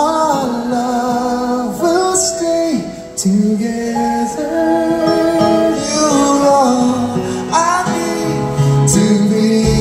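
Live band music: a slow ballad sung over acoustic and electric guitars and keyboard. Bass and drums swell in near the end.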